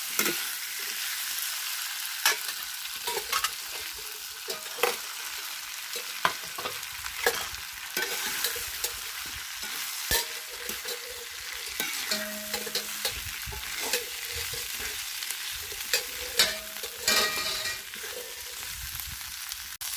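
Chopped vegetables sizzling in hot onion-tomato masala in an iron kadai, with a spoon scraping and knocking against the pan as they are stirred in. A steady hiss runs under frequent sharp clicks.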